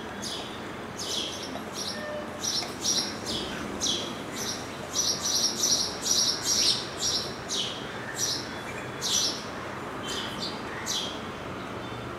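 House sparrows chirping: a quick run of short, high chirps, about two a second, loudest in the middle and stopping about a second before the end.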